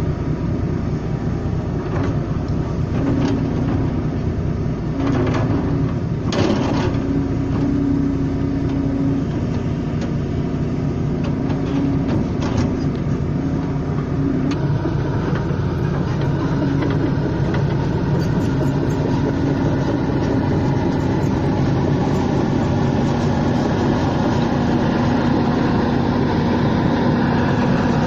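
Volvo EC210B hydraulic excavator's diesel engine running steadily under load while it digs, its note rising and falling as the arm and bucket work. A few sharp knocks of the bucket come in the first half, and the machine sounds closer and a little louder in the second half.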